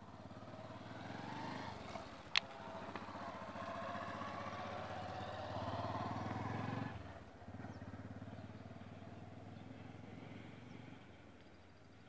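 A motor vehicle engine running close by. It grows louder over the first few seconds, drops off suddenly about seven seconds in, and keeps running more faintly until near the end. A single sharp click comes about two seconds in.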